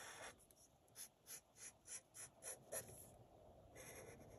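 Black Sharpie marker drawing on paper: about eight short, quick strokes, roughly three a second, then a longer, softer stroke near the end. Faint.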